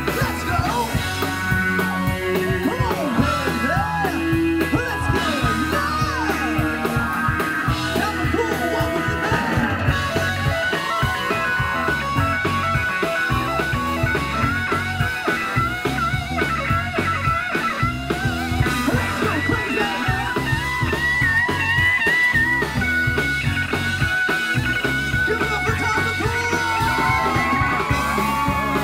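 Live rock band playing loud and steady: electric guitars, bass and drums with a wailing lead guitar bending notes, and some singing.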